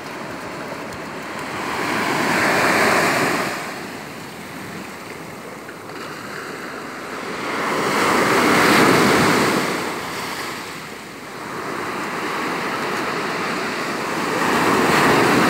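Surf breaking on a beach: three waves swell up loud and wash back, about three seconds in, about nine seconds in and again at the end.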